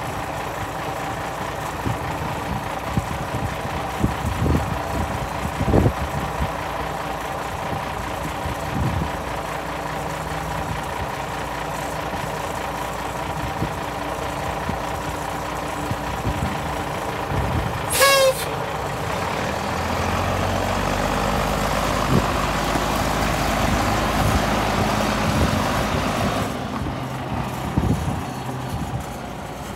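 International S1800 tow truck's engine running, with a few knocks in the first few seconds. About 18 s in, a short horn toot sounds. From about 20 s the engine runs louder and lower as the truck drives off.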